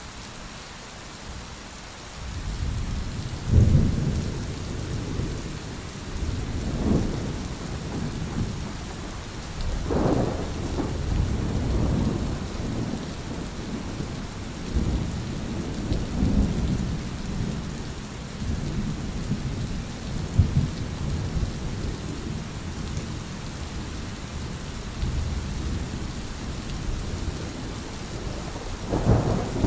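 Thunderstorm: steady rain hiss with rolling thunder. A low rumble builds about two and a half seconds in, with its loudest clap soon after, keeps rolling with several more swells, and a second sharp clap comes near the end.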